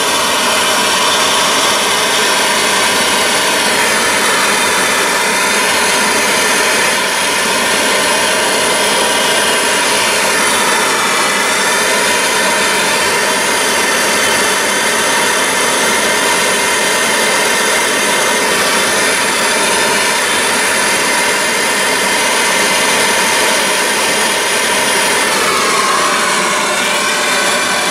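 Bullfinch Autotorch propane gas torch burning with a steady, loud hiss, its flame heating a steel joint for brazing with silver solder.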